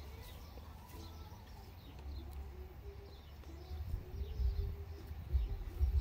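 Birds chirping faintly, with a low repeated cooing typical of a dove in the middle seconds. Underneath runs a low rumble that grows stronger, with some dull thumps, in the second half.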